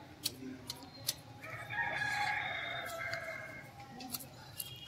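A rooster crows once, a call of about a second and a half starting about a second and a half in. Short sharp clicks of hand hedge shears snipping a shrub come before and after it.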